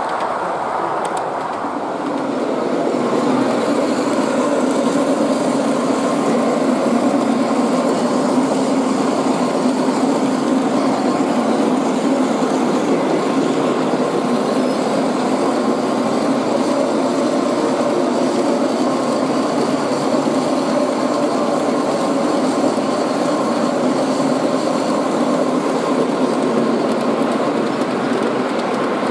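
G scale model trains running on a layout: a steady rolling of wheels on the track and motor drone, which grows louder about two seconds in and then holds steady.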